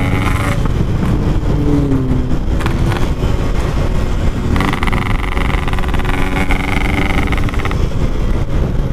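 Two-stroke Yamaha RX-King motorcycle engine running through an aftermarket packing-type exhaust while riding, its note rising and falling with the throttle.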